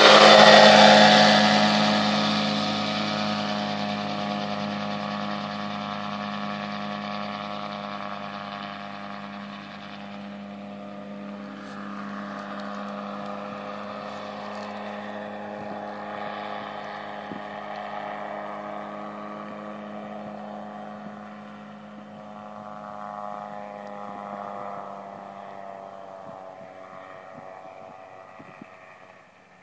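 Side-by-side gyrocopter's engine and pusher propeller passing close at full power, the pitch dropping slightly as it goes by, then a steady drone fading as the aircraft flies off into the distance.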